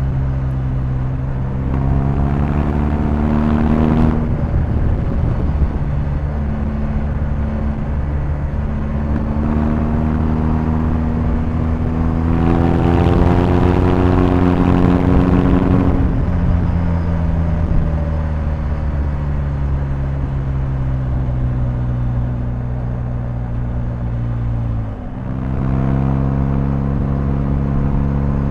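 BMW R1250GS boxer-twin engine under way, pulling up in pitch and dropping sharply about four seconds in as it shifts up. It then climbs again to a harder, rougher pull around the middle, winds down slowly as the throttle closes, and dips briefly near the end before running steadily again.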